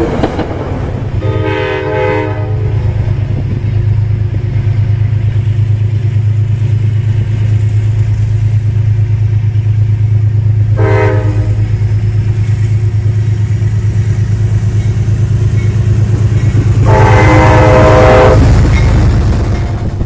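Metro-North locomotive horn sounding three times: a blast of about a second and a half, a short toot about ten seconds in, and another blast of about a second and a half near the end. Under it runs the steady low drone of the train.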